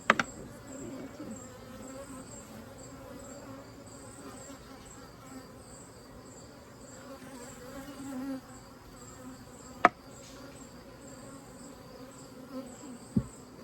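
Honeybees buzzing in a steady hum around the open hive, broken by a few sharp knocks: one at the start, one about ten seconds in, and a lower thump near the end.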